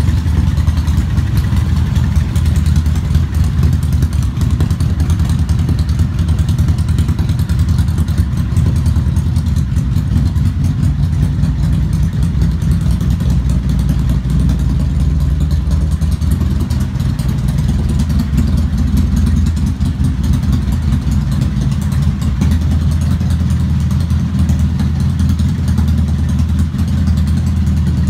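ATV engine idling steadily, its sound mostly low-pitched and even.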